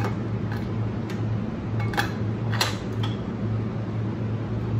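Scattered light metal clinks and taps from a steel bench vise and hand tools being handled, about six in all, over a steady low hum.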